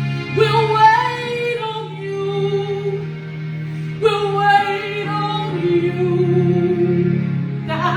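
Slow worship music: steady sustained keyboard chords under a woman singing two long phrases of held notes, the second starting about halfway through.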